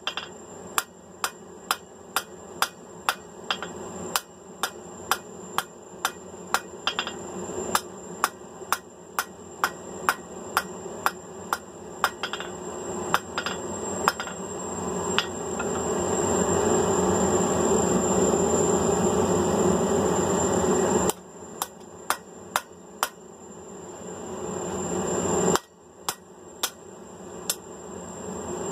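Hand hammer striking steel on an anvil in steady blows, about two a second, as the bar is drawn out. Partway through, the blows stop and a steady rushing noise swells for several seconds. After abrupt cuts, short runs of hammer blows return.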